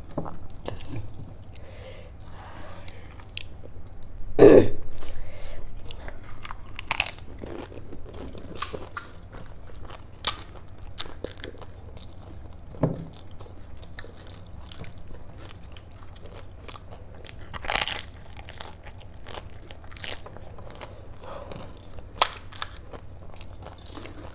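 Crisp pani puri (golgappa) shells crunching as they are cracked open and bitten and chewed, in many scattered sharp crackles, the loudest about four and a half seconds in.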